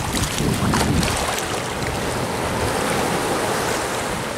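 Small ocean waves breaking and whitewater rushing close by in shallow surf, a steady hiss of churning water. Wind rumbles low on the microphone during the first second.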